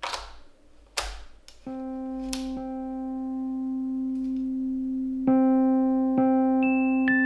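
A pancake lens being twisted onto an SLR camera's metal bayonet mount: a few short scrapes and clicks over the first two and a half seconds. Electric piano music with sustained notes comes in about a second and a half in and soon becomes the loudest sound.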